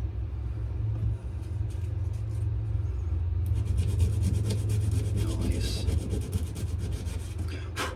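Coarse sandpaper scraping over a wenge-and-maple knife handle in rapid back-and-forth strokes, starting a few seconds in, over a steady low hum. A sharp knock near the end.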